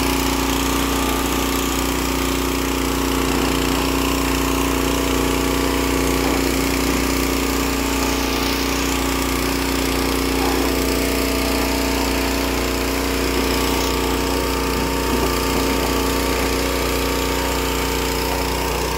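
Pressure washer running steadily, a constant motor drone with the hiss of the high-pressure spray on top.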